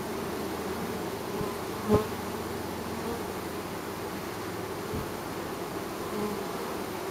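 Hundreds of honey bees buzzing in a steady, wavering hum around a crowded hive entrance, with a brief knock about two seconds in.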